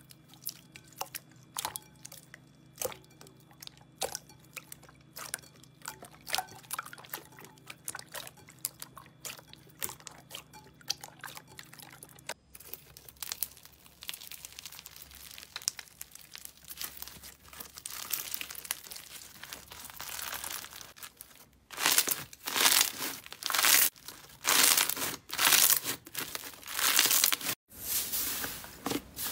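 Hands working slime in three clips. First a clear slime squeezed in a bowl gives quick, sharp clicking pops. After a cut, a yellow foam-bead slime (floam) gives a steady crunchy crackle as it is stretched. Near the end, a thicker slime is pressed in loud crackling bursts about once a second.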